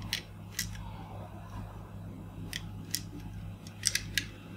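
Sharp plastic clicks, about seven at uneven intervals and three close together near the end, as small plastic pellets are pushed one by one into the feed of a toy M249 drum magazine. A low steady hum runs underneath.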